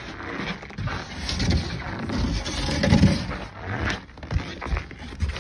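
Footsteps on a snowy deck, with rustling, rumbling and scattered knocks from a hand-held phone's microphone. The loudest stretch comes near the middle.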